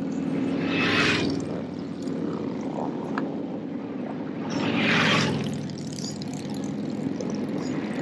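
Motorcycles going by on the road, their engines running steadily, with a rushing swell as a bike passes close about a second in and another around five seconds.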